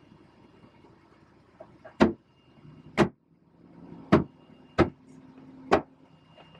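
Five sharp knocks, spaced roughly a second apart, over a faint low background.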